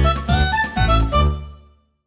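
A remastered Nokia 3220 ringtone playing: a melody over a steady beat. It stops a little over a second in and dies away to silence.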